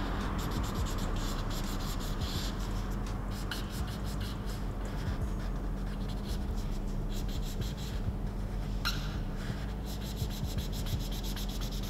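Marker pen tip scratching and rubbing on paper in quick, repeated short strokes as an area is coloured in, with one sharper scratch about nine seconds in. A steady low hum runs underneath.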